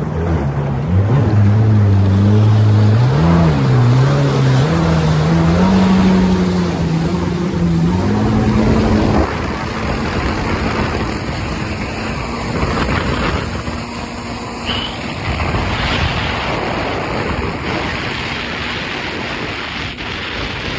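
Jet ski engine revving, its pitch climbing and dipping as the throttle is worked, then rising and holding high. About nine seconds in, the engine tone is swamped by a loud rushing noise of wind and spray at speed.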